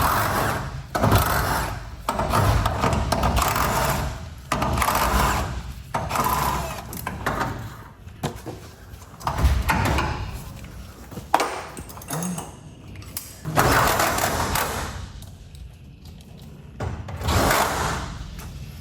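Garage door torsion spring being wound by hand with winding bars, quarter turn by quarter turn: repeated metallic clanks and scrapes, roughly one every one to two seconds.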